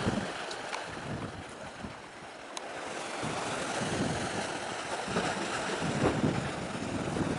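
Wind gusting on the microphone in uneven low rumbles, over a steady wash of sea and waves.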